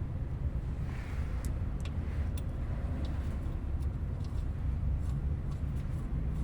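Car running, a steady low rumble with a few faint ticks over it.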